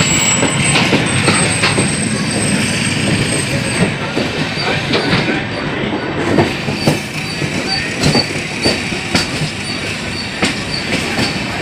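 Passenger train running at speed, heard from aboard the coach: a steady rush of wheels on rail, with a thin high wheel squeal for the first few seconds and sharp clicks over rail joints throughout.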